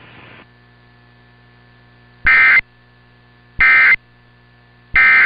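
Emergency Alert System end-of-message (EOM) code: three short, loud bursts of screeching digital data tones, about 1.3 s apart, starting about two seconds in and marking the close of the test message. A faint steady hum lies under and between them.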